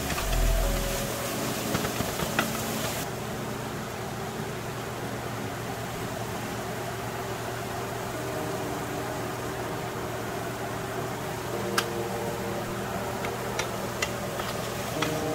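Ground pork, tomatoes and corn sizzling in a hot skillet, stirred with a wooden spatula that now and then clicks and scrapes against the pan.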